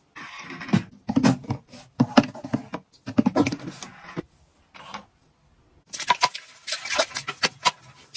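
Rapid clicks, knocks and scrapes of objects being handled. They break off for a moment about four seconds in, then resume as quick, sharp, scratchy strokes.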